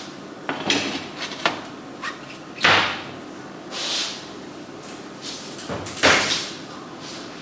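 Kitchen handling noises: a string of short knocks and scrapes, like a door or drawer and cookware being moved, the two loudest about three and six seconds in.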